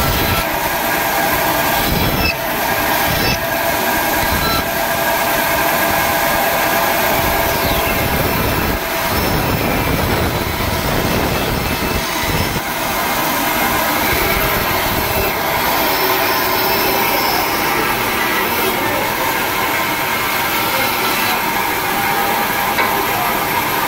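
Band saw running with a steady whine while its blade cuts spoon and spatula blanks from wooden board. The rougher cutting noise underneath changes as the wood is fed through and turned.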